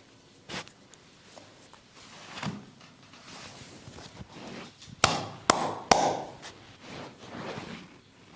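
Massage hands striking bare skin: a few soft pats, then three sharp slaps about half a second apart about five seconds in.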